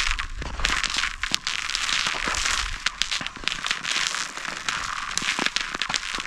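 Ice skate blades scraping and hissing across thin, clear lake ice, the hiss swelling and fading with each stride, with many sharp crackles and clicks running through it.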